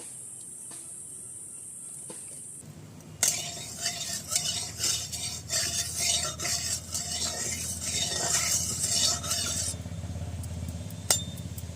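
Metal utensils clink and scrape against pots and dishes in quick, irregular strokes. Under them is a sizzle of oil heating in a frying pan. The clatter starts about three seconds in and dies down near the end, leaving a steadier low noise and one sharp click.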